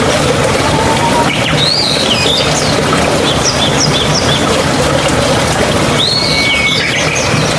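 Steady rushing of a mountain stream, with a bird calling over it. The bird gives a run of rising and falling whistled notes about a second in, then a quick series of short notes, and calls again near the end, finishing on a held note.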